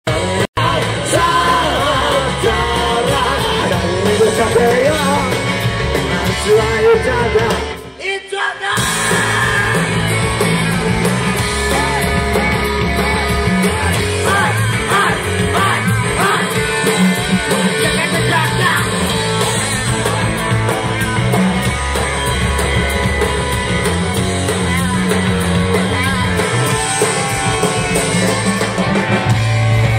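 Live rock band playing loud, with electric guitar, drums and a lead singer. The band drops out briefly about eight seconds in, then comes straight back in full.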